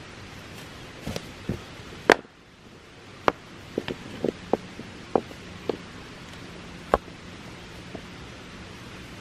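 Rounded stones knocking and clacking against each other as they are set by hand into a ring of rocks: a string of sharp, separate knocks, the loudest about two seconds in.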